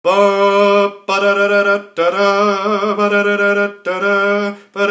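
A man singing solo in long held notes, four sustained phrases broken by short pauses, the third the longest with a wavering pitch.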